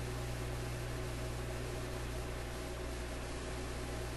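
Steady low electrical hum under a constant hiss, with no change or separate event.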